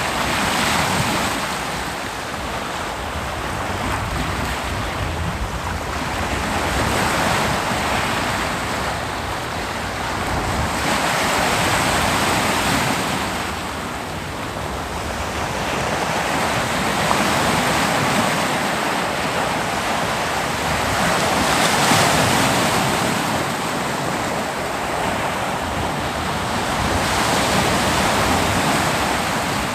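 Ocean waves breaking on a beach: a continuous rushing surf that swells and fades in slow surges every few seconds.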